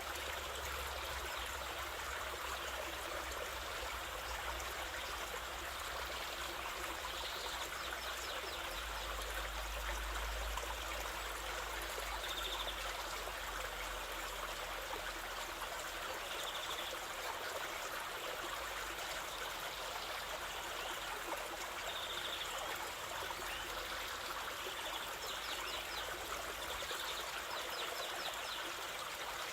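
Waterfall water rushing and splashing in a steady, unbroken wash. A few faint, short high chirps sound now and then over the water.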